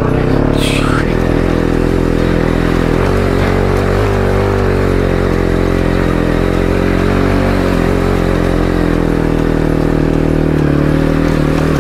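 Motorcycle engine held at steady, slightly wavering revs as the bike works its way out of deep wet sand.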